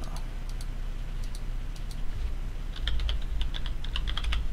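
Typing on a computer keyboard: a few scattered key clicks, then a quick run of keystrokes from about three seconds in.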